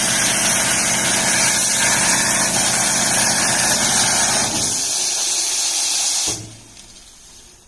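Plasma cutter running: a loud hiss over a low hum. The hum drops out about four and a half seconds in, and the hiss cuts off suddenly about six seconds in, leaving a faint hiss.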